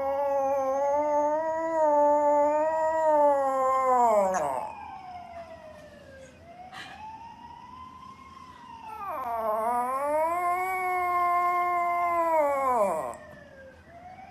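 Small poodle howling on a grooming table: two long howls, each swelling up, held with a slight waver, then sliding down, with a fainter howl between them.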